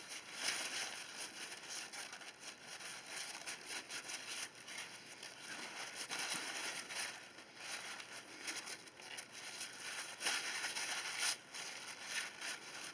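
Paper towel rustling and crinkling as it is rubbed over a small RC shock absorber, wiping shock oil and alcohol off its body in quick, uneven strokes.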